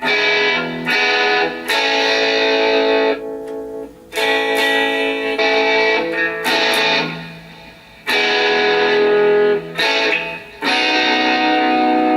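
Electric guitar played through a Line 6 POD XT Live modelling processor into an amplifier: about six chords, each struck and left to ring, with short gaps between them.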